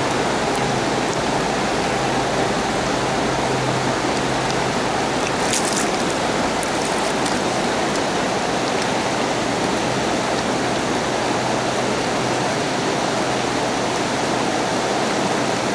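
River water rushing steadily through a shallow riffle.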